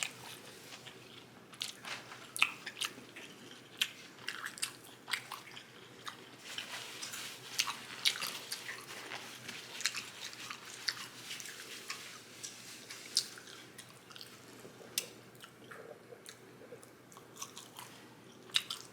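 Close-miked mouth sounds of a person biting and chewing a lettuce-wrapped double cheeseburger: irregular wet clicks and smacks, busiest in the middle stretch.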